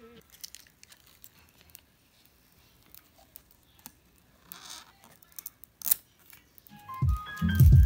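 Small clicks and rustles of a clear plastic phone case being handled and pressed onto an iPhone XR, with a short rustle about four and a half seconds in and a louder snap near six seconds. Background music comes back in near the end.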